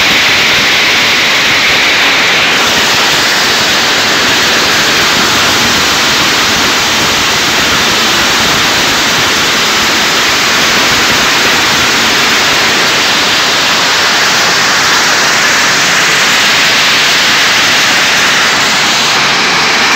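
Steady, loud noise of a stone-crushing plant running, with crushed stone pouring off a chute and riding along conveyor belts.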